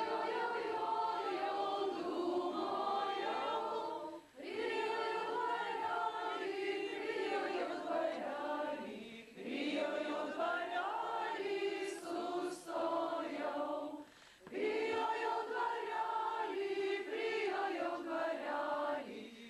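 A choir singing, in long phrases with short breaks between them about four, nine and fourteen seconds in.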